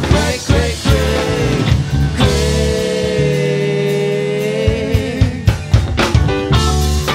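Live rock band playing: electric guitars, bass, keyboards and drum kit. A long held note sustains from about two seconds in to nearly five seconds.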